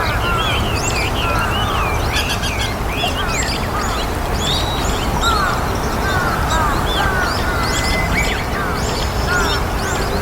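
A flock of white-cheeked starlings calling, many short chirps overlapping in continuous chatter, over a steady low background rumble.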